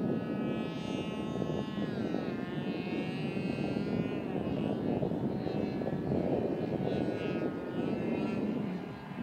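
Radio-controlled model airplane's engine and propeller whining in flight, the high pitch sliding up and down as it passes and changes throttle, over a steady rushing noise.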